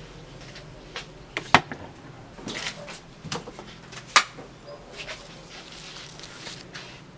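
Objects being picked up off a desk and set down: a string of knocks and clunks with handling rustle between, the two sharpest about one and a half and four seconds in.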